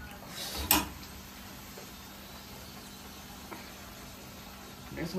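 A steel spatula clacks once against the iron tawa under a ghee-brushed paratha about a second in, then a steady faint hiss from the stove as it cooks, with a light clatter of the spatula near the end.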